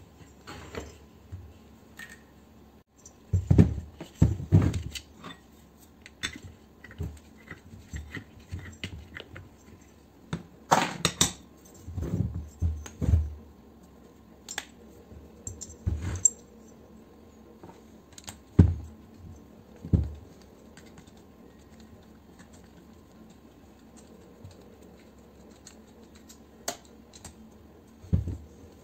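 Metal parts of a pressure washer being handled and taken apart by hand on a metal workbench: irregular clinks, clicks and knocks, in short clusters with pauses between.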